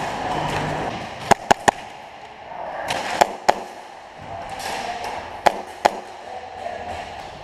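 Airsoft guns firing: sharp single cracks, three in quick succession just after a second in, then a pair about three seconds in and another pair about five and a half seconds in.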